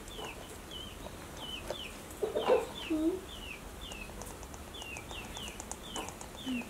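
Birds calling repeatedly, short high-pitched falling chirps a couple of times a second, with a louder, lower cluck about two and a half seconds in.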